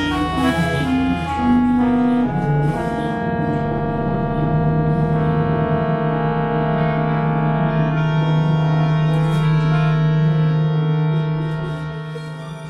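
Instrumental background music: held keyboard chords with a low sustained note, fading out near the end.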